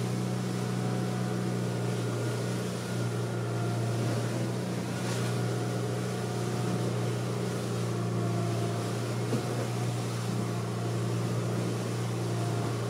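Motorboat's engine running steadily under way, a constant drone, with wind and rushing water as it crosses choppy, wind-blown water.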